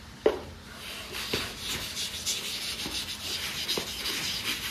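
A chalkboard being wiped clean: uneven scrubbing and rubbing over the board's surface, after a light knock just after the start.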